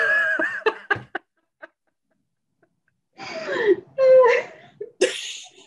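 Women laughing over a video call: a short bit of voice at the start, cut-off silence, then a longer wavering laugh about three seconds in and a breathy burst of laughter near the end.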